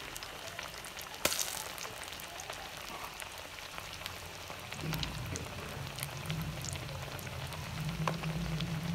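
Masala-coated fish pieces deep-frying in hot oil: a steady sizzle full of small crackles and pops. About five seconds in, a low steady hum joins underneath.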